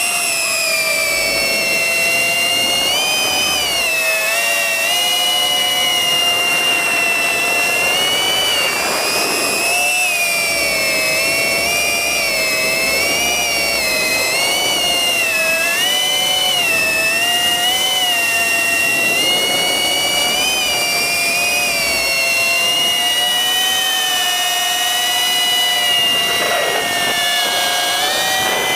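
FPV quadcopter's brushless motors and propellers whining, the pitch rising and falling continually with the throttle.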